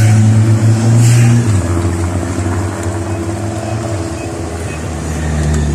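Engines of race escort motor vehicles passing close: a steady drone that drops in pitch about one and a half seconds in as one goes by, and another engine rising in pitch near the end.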